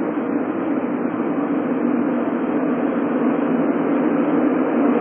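Steady rushing drone of a ship under way, heard on its open stern deck, with the energy strongest in a low hum.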